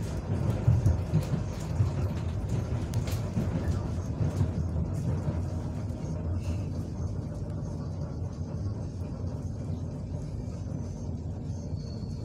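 Steady low rumble inside the passenger car of an ER9M electric multiple unit, with a few sharp knocks and clatters over the first four seconds or so.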